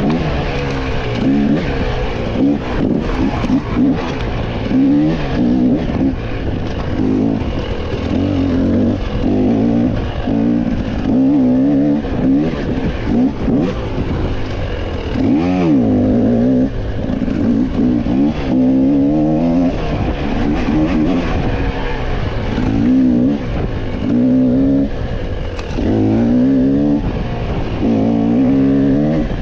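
Off-road racing motorcycle engine revving up and down with the throttle, its pitch rising and falling every second or two, heard close from the bike.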